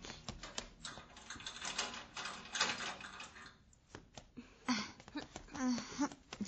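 Sound effects of quick clicks and rustling noise, with a few short voice sounds in the last couple of seconds.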